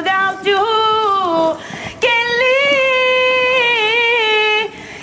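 Background music: a song with a high singing voice, one falling phrase and then a long held note.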